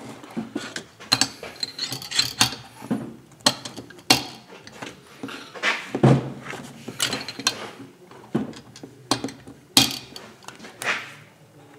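Irregular metallic clicks and clacks of a socket wrench working the cylinder bolts of a Stihl MS 391 chainsaw engine as they are torqued down, about one or two a second.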